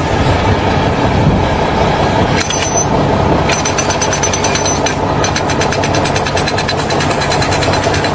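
Loud machinery running with a steady rumble; about three and a half seconds in, a rapid, even rattle joins it.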